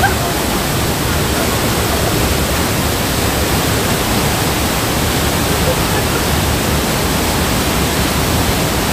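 Rhine Falls, a large waterfall, giving off a loud, steady rush of falling water.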